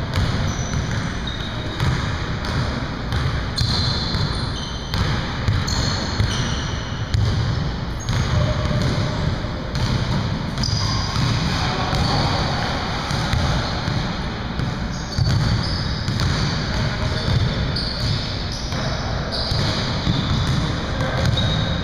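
Basketball bouncing on a hardwood gym floor during a game, with frequent thuds, many short high sneaker squeaks, and players' voices, all echoing in a large gym.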